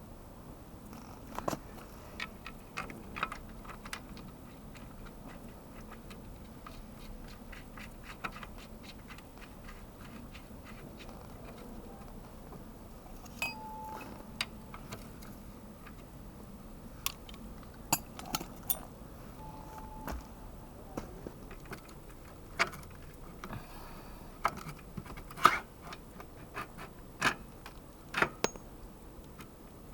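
Irregular clicks and clinks of metal hand tools, the knocks louder and more frequent in the second half, with two short high tones in the middle.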